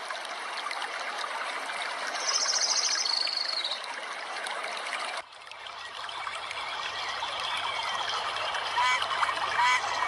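Steady rush of running water, like a stream. About two seconds in, a short, high, rapid trill plays over it. The sound cuts off abruptly about five seconds in and then resumes, with a couple of short rising chirps near the end.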